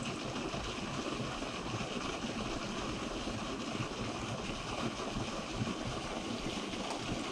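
Steady rush of river water pouring over a small spill, an even hiss with no break.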